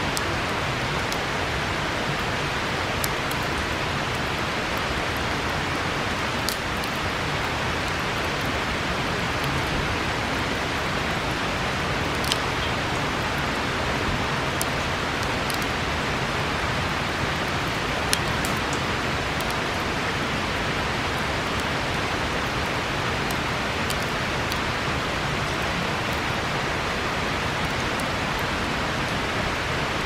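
Steady rush of a river, with a few sharp pops from a burning wood campfire scattered through it.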